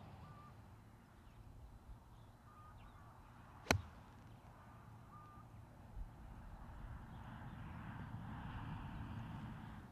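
Lob wedge striking a golf ball once, a single sharp click about a third of the way in, over a low outdoor rumble. A soft thud follows about six seconds in, with a few faint short chirps scattered through.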